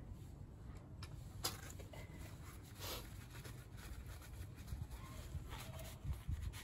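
A few faint clicks and knocks of metal hand tools being handled and set down, over a steady low rumble.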